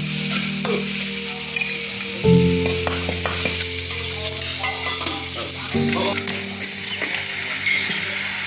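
Spice sauce frying and sizzling in a wok, stirred with a metal spoon that clicks and scrapes against the pan now and then.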